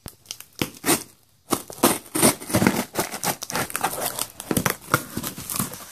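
A taped cardboard parcel box being opened: packing tape cut with scissors and torn away, with crinkling and crackling of tape and cardboard. A few separate snips and clicks come first, then dense crackling and tearing from about a second and a half in.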